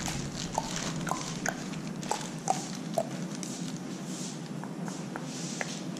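A string of light, irregular clicks and taps, about one every half second, as a plastic zip-lock bag of small pump-rebuild parts is opened with a screwdriver and handled.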